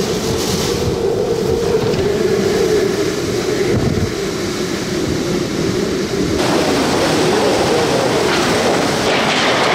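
Hurricane eyewall wind and driving rain buffeting a vehicle: a loud, continuous rush with a wavering howl and wind noise on the microphone. About six seconds in, the rush turns brighter and hissier.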